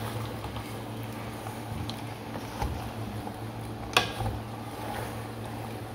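A spatula stirring a chicken and vegetable mixture in a metal pot, with soft scrapes and one sharp clack against the pot about four seconds in, over a steady low hum.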